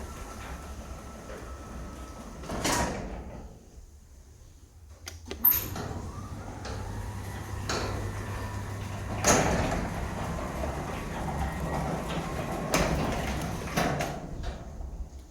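Electric garage door opener running and the door travelling, a steady low hum with several clunks and rattles. The hum drops away about four seconds in and starts again with a sharp click about a second later.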